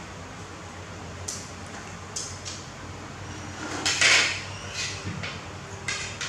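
Plastic stools knocking and rustling as young macaques move about on them, with one louder scraping clatter about four seconds in, over a steady low room hum.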